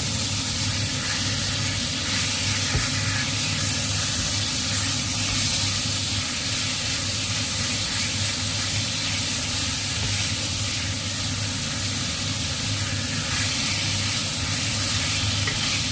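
Chicken pieces frying in oil with leeks and onion in a pan, sizzling steadily, with a low steady hum underneath.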